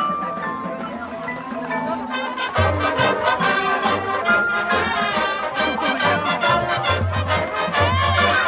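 Marching band playing its field show: mallet percussion and winds, then about two and a half seconds in the full band enters with brass and repeated low drum hits.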